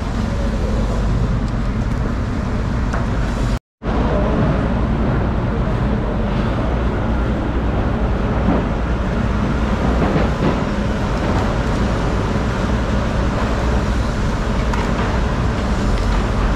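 Steady, loud background din with a strong low rumble, the kind of traffic or machinery noise found on an open market floor. It cuts out completely for a split second about four seconds in.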